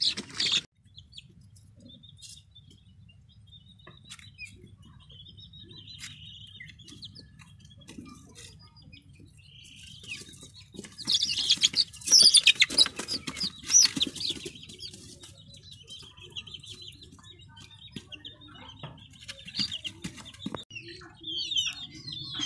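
A flock of young deshi chickens peeping and chirping in short high calls, busiest and loudest about halfway through, over a low steady hum.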